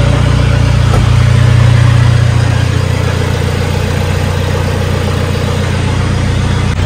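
Toyota Hilux Vigo's 2KD 2.5-litre four-cylinder turbodiesel idling through a straight-piped exhaust with no muffler, just after being started. The idle runs a little higher for the first couple of seconds, then settles to a steady idle.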